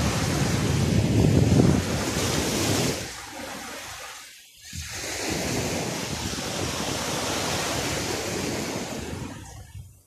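Small sea waves breaking and washing up a sandy shore, with wind blowing across the microphone; the noise is heaviest in the first couple of seconds and dips briefly about halfway through.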